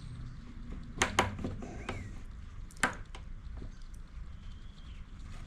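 Small hand-work noises as a fuel line is worked into the rubber grommet of a blower's fuel tank: a few sharp clicks and taps of pliers and plastic, two close together about a second in and another near the three-second mark.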